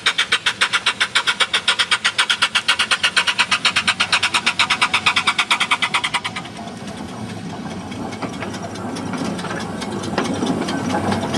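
Replica Mary Ann steam locomotive working under steam, rapid hissing exhaust beats at about seven a second as it draws its carriages along. The beat stops abruptly about six seconds in, leaving a steady rumble of the train rolling past with a few clicks.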